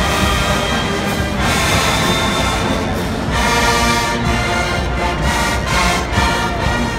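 HBCU show-style marching band playing live, with its brass, sousaphones among them, sounding sustained chords over drums. The chords change about one and a half seconds in and again a little past three seconds.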